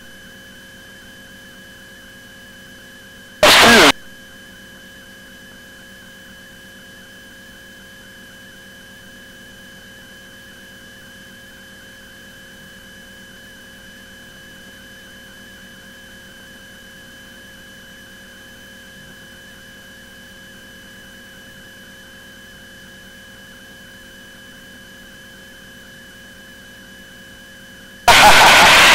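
Steady electrical hum with a thin high whine on an aircraft's intercom audio feed. It is broken by two short loud bursts of noise, one about three and a half seconds in and a longer one near the end.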